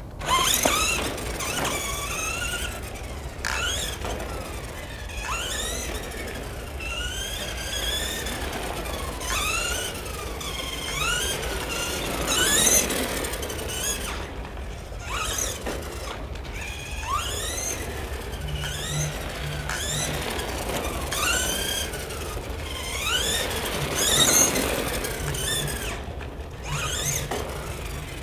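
Electric motor and gearbox of a Tamiya CW-01 Unimog radio-controlled truck whining, the pitch climbing and falling again and again as the throttle is pulsed, about once every second or two.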